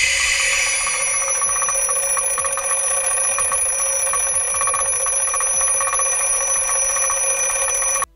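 Twin-bell mechanical alarm clock ringing continuously, with a rushing hiss of air that fades out in the first second. The ringing cuts off abruptly near the end.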